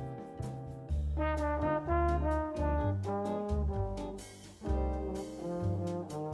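Instrumental background music: a melody of held notes over a bass line, with a regular beat.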